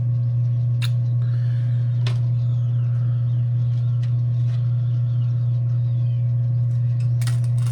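A steady low hum with a few sharp clicks of pruning shears snipping into quail eggshells, and faint high chirps.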